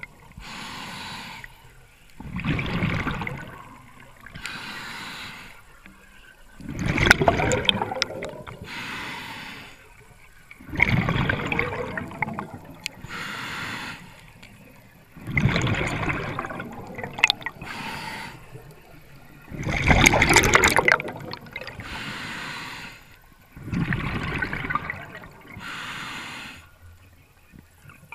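Scuba diver breathing through a regulator underwater: six loud bubbling exhales about every four and a half seconds, each followed by a quieter hissing inhale, with a few sharp clicks.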